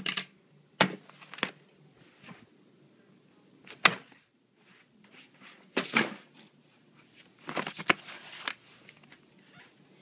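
Handling noise from a handheld phone being moved about: scattered sharp knocks and rubbing sounds, with a denser run of them near the end.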